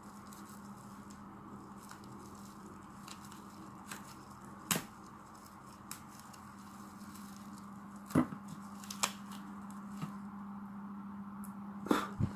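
Packaging of a replacement phone screen being opened by hand: a few scattered sharp clicks and snaps over a steady low hum.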